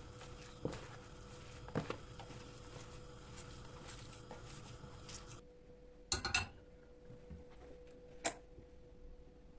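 Kitchen handling sounds: a few scattered knocks and clinks of dishes and utensils, with a short rattle past the middle, over a faint steady hum.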